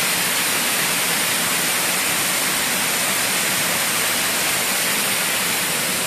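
Small waterfall rushing steadily: an even, unbroken hiss of falling water.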